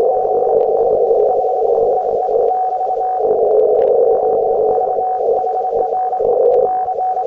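Amateur radio transceiver's receiver audio on the 20 m band: band noise heard through a narrow CW filter as a steady hiss, with one unbroken steady tone near the middle of the passband.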